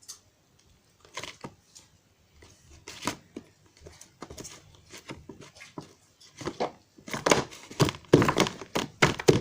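Sticky, wet crackling and squelching as stiff slime is worked by hand with hair conditioner. The crackles are sparse at first and come thick and louder over the last couple of seconds.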